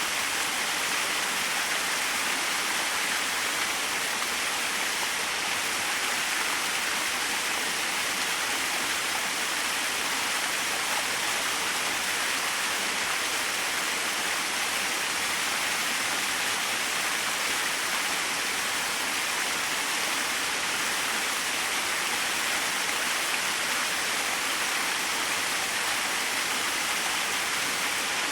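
Small waterfall: a steady, even rush of falling water.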